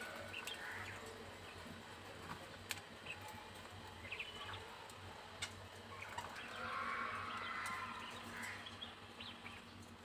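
Caged Japanese quails giving soft, scattered chirps and short calls, busier for a couple of seconds after the middle, with a few sharp clicks.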